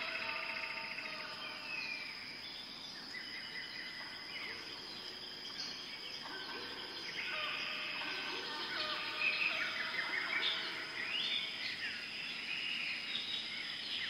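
Several birds chirping and singing in short overlapping calls and trills, busier in the second half, over a steady high-pitched tone.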